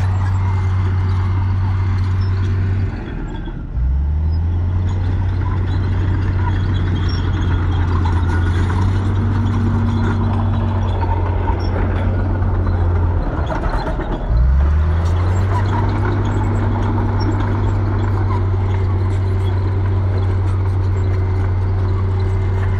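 Komatsu crawler bulldozer's diesel engine running steadily under load while it pushes dirt, a low, even drone. The revs drop and climb back twice, about three seconds in and again about fourteen seconds in.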